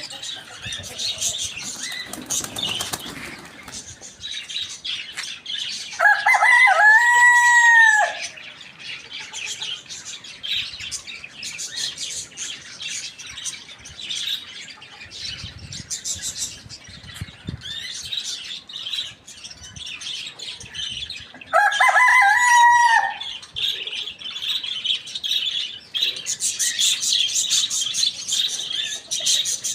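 A rooster crowing twice, each crow lasting about two seconds, the first about six seconds in and the second about fifteen seconds later. Constant high chirping and clucking from the other birds runs underneath.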